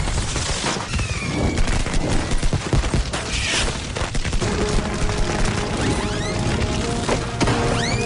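Fireworks crackling and popping rapidly, like a fusillade, with rising whistles from about six seconds in, over orchestral music.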